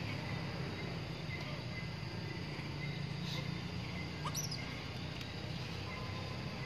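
Outdoor ambience: a steady hiss of insects over a low hum, with a short bird chirp about three seconds in and another quick rising-and-falling chirp a little after four seconds.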